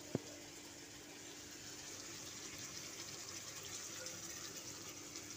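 Water poured from a steel bowl into a pan of mutton and potato curry, a faint steady pouring and splashing. A single sharp clink just after the start.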